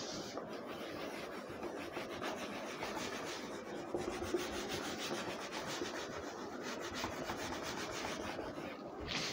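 A cloth wiping marker off a whiteboard, rubbed back and forth in quick continuous strokes.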